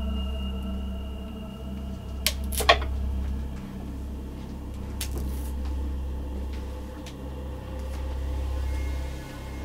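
A banana being pulled off a banana hanger and peeled by hand: two sharp snaps a couple of seconds in as it is broken from the bunch, and a lighter snap about five seconds in as the stem is broken to open the peel, over a steady low hum.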